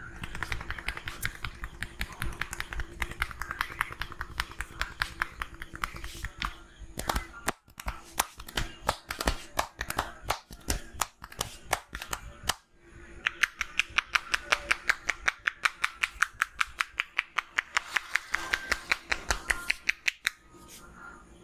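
Head-massage percussion: a barber's hands slapping and tapping on a person's head in a fast, even rhythm of several strikes a second, with short breaks about seven and twelve seconds in.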